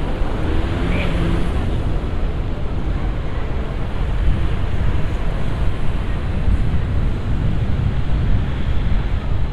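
Busy city street ambience: a steady low rumble of traffic and crowd noise, with faint voices around the first second or so.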